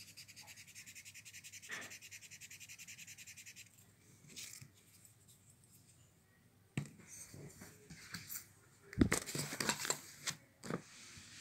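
Blending stump rubbed quickly back and forth over a charcoal drawing on paper: an even, scratchy hiss of several strokes a second that stops after a few seconds. Near the end come irregular knocks and rustles of handling, loudest a little past the middle of that stretch.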